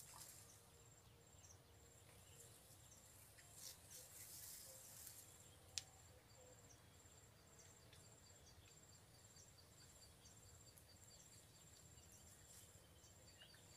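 Faint, high-pitched insect calls repeating in even pulses over near silence, with a single sharp click about six seconds in.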